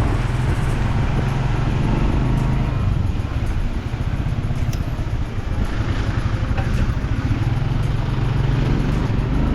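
A car driving along wet, waterlogged roads: a steady low engine hum with the hiss of tyres on water.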